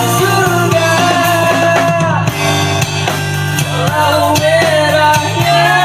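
A rock band playing: drum kit keeping a steady beat under a sustained bass line, with a bending lead melody line on top.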